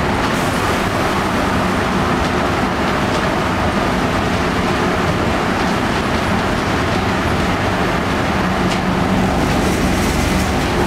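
Interior of a 1990 Flxible Metro bus underway: its Detroit Diesel 6V92 two-stroke V6 diesel running at a steady drone with a constant hum, over road rumble and a few light body rattles.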